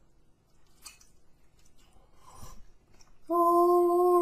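Faint crunchy chewing of a chicken wing, then about three seconds in a man's voice breaks into a loud, long note held at one steady pitch.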